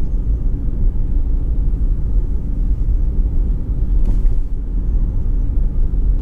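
Steady low rumble of road and tyre noise inside the cabin of a moving car.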